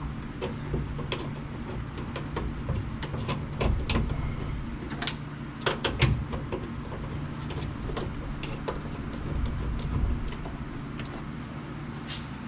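Irregular sharp metallic clicks and clanks from hand tools and bolts being worked on a truck door hinge, some in small clusters, over a steady low hum.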